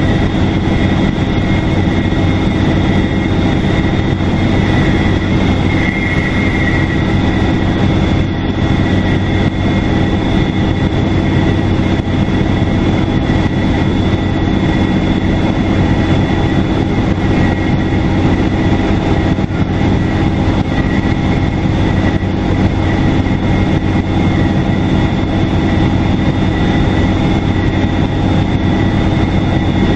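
Detroit Diesel Series 50 four-cylinder diesel of a 2002 NABI 40LFW transit bus running steadily over road noise. A steady high turbocharger whistle sits above the engine's low hum.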